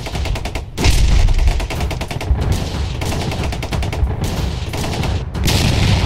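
End-screen sound effect: a fast volley of cracks and bangs like gunfire, with deep booms about a second in and again near the end.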